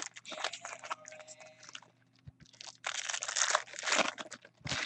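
Foil wrapper of a baseball card pack crinkling and tearing as it is ripped open, with the cards rustling out. The loudest rustling comes about three to four seconds in and again near the end.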